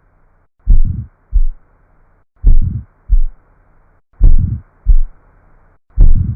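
Heart auscultation recording of aortic stenosis: a repeating lub-hush-dub, in which the first heart sound runs into an ejection systolic murmur and is followed by a shorter second heart sound. The pattern comes about once every 1.8 seconds, with a faint steady hiss in between.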